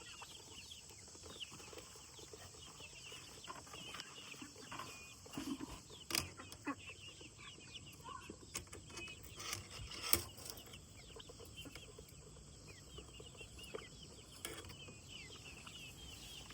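Chickens clucking and making many short high chirps. A few sharp knocks come through, the loudest about ten seconds in.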